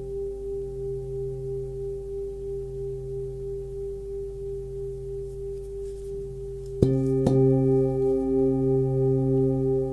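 Hand-forged Tibetan singing bowl, 25.3 cm across with its low note at about 134 Hz (C), ringing on with a slow wavering beat as the tone fades. About seven seconds in it is struck again, with a second light tap just after, and rings out louder.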